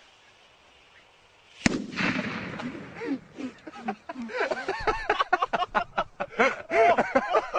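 A faint hiss as a charge smokes in a hole in the ground, then one sharp loud bang about a second and a half in as it goes off. The bang is followed by excited voices shouting and laughing.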